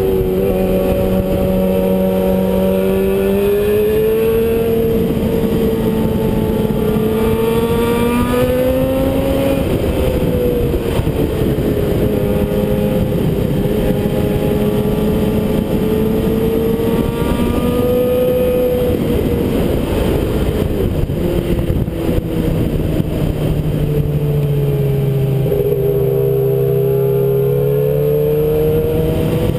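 Suzuki GSX-R600 sport bike's inline-four engine running at a steady cruise, its note rising and falling gently with the throttle, over heavy wind and road noise.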